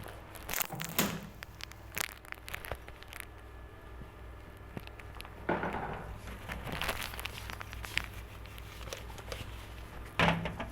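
Crinkling, crackling handling noises with scattered clicks and a few louder knocks, over a steady low hum, as cupping cups and supplies are handled during a wet-cupping treatment.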